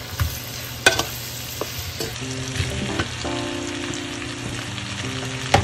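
Cocktail sausages sizzling in oil in a frying pan while being stirred with a wooden spatula, which knocks against the pan a few times.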